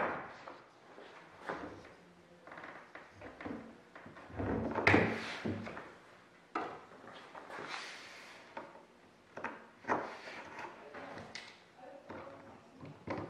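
Wooden standoff blocks and tools being handled and set down on a wooden workbench: scattered knocks, thunks and clatter, the loudest about five seconds in.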